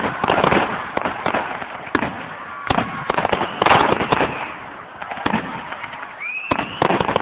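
Fireworks display: aerial shells bursting with sharp bangs about once a second, crackling between them, and a short rising whistle about six seconds in.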